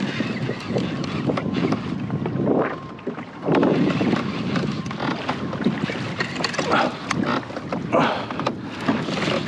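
Water slapping and splashing against a fishing kayak's hull as it moves across open sea, with wind buffeting the microphone. The splashing comes in uneven surges, strongest a little after the middle.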